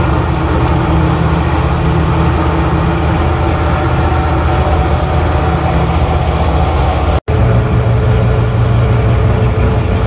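Cab of a 1968 Jeep Gladiator J3000 pickup at highway speed: a loud, steady engine drone with road and wind noise. The sound cuts out for an instant about seven seconds in and returns with a stronger low hum.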